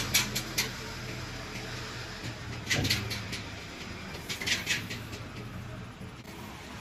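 Isuzu NPR crane truck's diesel engine running low and fading, with several sharp mechanical clicks and clunks: a few right at the start, a heavier clunk about three seconds in, and another cluster of clicks a little later.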